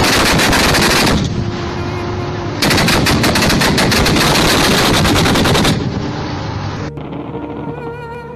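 Automatic gunfire in two long, rapid bursts over background music, the first ending about a second in and the second running from about two and a half seconds to nearly six seconds in; after that the music plays on alone.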